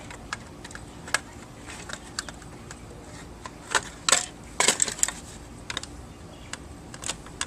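Scattered clicks and small metallic taps of a screwdriver working at screws in a garage door opener's housing, with parts knocking together; a busier run of clicks about four to five seconds in.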